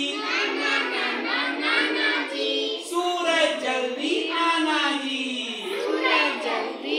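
A group of young children singing a Hindi rhyme together.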